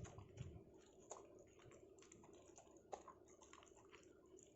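Faint, irregular clicks and smacks of a dog eating rice from a plate: tongue and teeth lapping and chewing, with a sharper click about a second in and another near three seconds.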